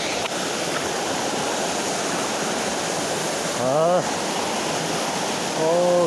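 Steady rush of a waterfall cascading over mossy rocks into a pool. A person's voice makes two brief wordless sounds, one about two-thirds through and one near the end.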